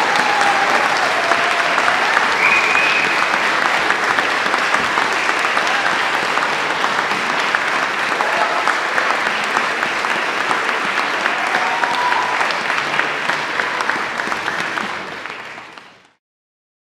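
Audience applauding, dense continuous clapping with a few voices calling out over it; it fades out near the end.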